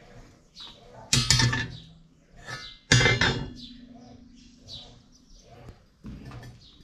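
Steel car coil spring set down on a steel workbench: two loud metal clanks, about a second in and about three seconds in. The second rings on with a steady tone for about two seconds, and a softer metal knock follows near the end.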